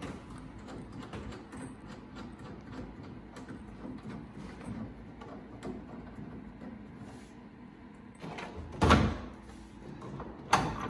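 Small clicks and rattles of a speaker mounting clamp being fitted and tightened by hand around a metal bar, with a louder knock about nine seconds in and another near the end.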